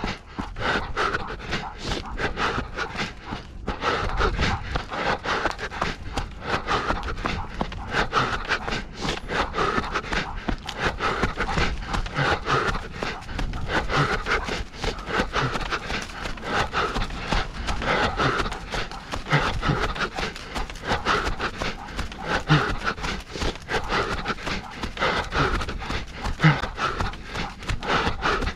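A runner breathing hard and rhythmically at race pace, with quick running footsteps pounding throughout.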